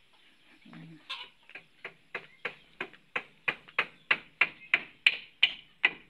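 Hammer driving nails into plywood boarding over window openings: steady, evenly spaced blows about three a second, starting about a second in and growing louder.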